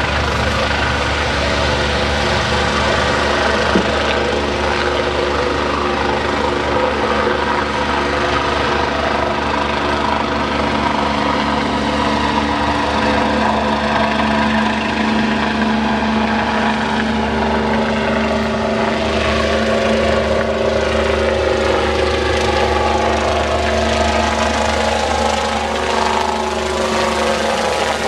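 Twin-engine medical helicopter lifting off and flying overhead, its rotors and turbines running loud and steady. In the second half its tones slide in pitch as it passes over and climbs away.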